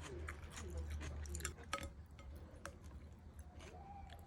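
Faint eating sounds at the table: irregular light clicks and clinks of tableware, with chewing. A low hum sits under the first second and a half.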